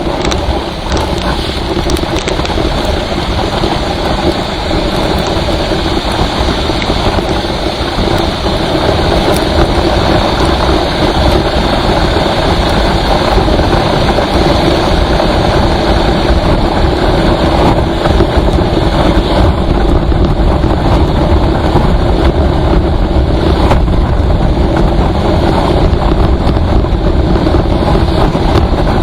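Steady road and engine noise of a vehicle travelling at highway speed, with a constant low drone. It grows a little louder after about eight seconds.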